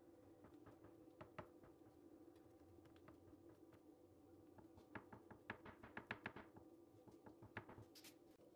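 Faint light taps and clicks of fingertips pressing and crimping the edges of filled dough against a wooden cutting board, a few early on and a quick run of them about five to six seconds in, over a low steady hum.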